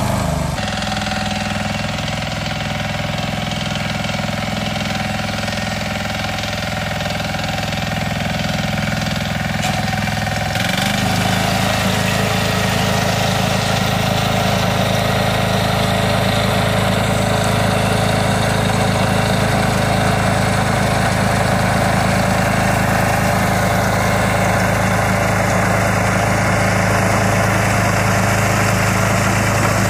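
Grillo G107D walking tractor's diesel engine running steadily while its rotary tiller churns the soil. The engine note shifts abruptly about half a second in and again about eleven seconds in, growing slightly louder after the second change.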